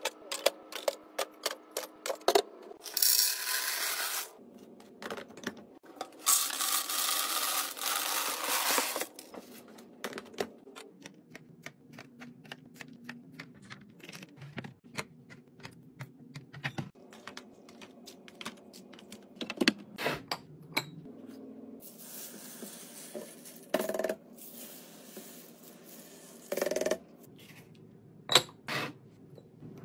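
Food containers and packages clicking, tapping and clattering as they are set into a refrigerator during restocking, with several bursts of hissing noise lasting one to three seconds.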